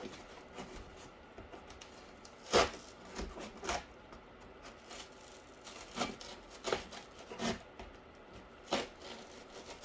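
Corrugated cardboard being cut with a knife and handled: a series of short scrapes and taps a second or so apart, the loudest about two and a half seconds in.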